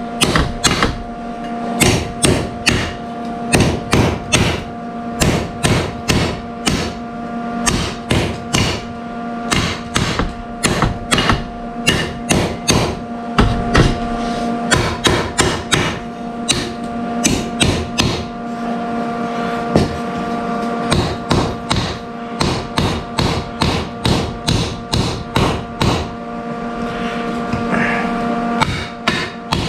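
Hammer striking the relief-cut end of a metal exhaust pipe, bending the tabs down to close it off. A steady run of sharp blows, about two a second, with the pipe ringing under them.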